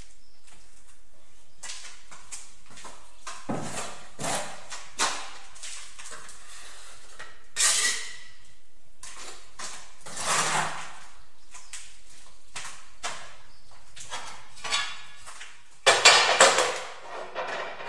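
Scattered knocks, taps and scrapes of ceramic wall tiles and tools being handled and set in place, then a louder run of scraping and clattering near the end.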